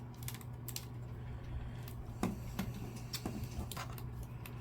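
Scattered light plastic clicks and taps from handling the disassembled Xbox One controller, about a dozen irregular ticks over a steady low hum.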